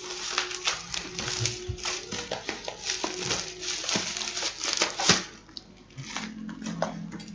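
Packaging crinkling and rustling with quick irregular clicks and taps as a parcel is unwrapped by hand; it dies down about five seconds in.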